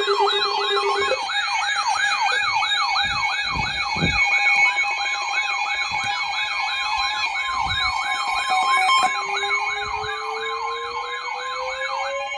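Several sirens sounding together: a fast electronic yelp sweeping up and down about three times a second over steady alert tones. About three-quarters of the way through, another siren begins a slow rising wind-up.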